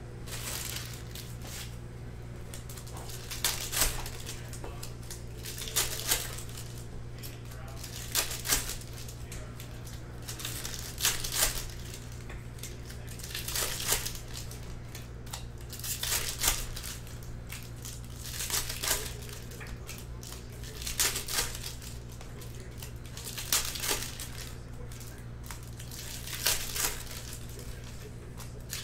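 2020 Bowman baseball card pack wrappers crinkling and tearing as packs are ripped open one after another, a burst about every two and a half seconds, over a steady low hum.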